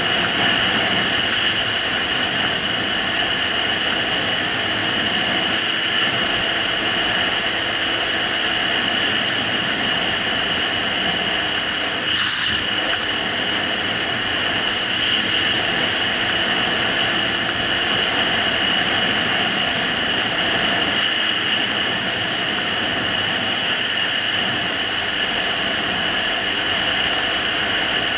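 Suzuki GSR750's inline four-cylinder engine running steadily while the motorcycle is under way, mixed with the steady rush of wind noise, and a brief hiss about twelve seconds in.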